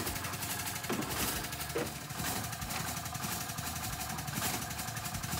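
Utility vehicle engine idling steadily, with a few scrapes and knocks of a pitchfork digging into wood-chip mulch in its dump bed.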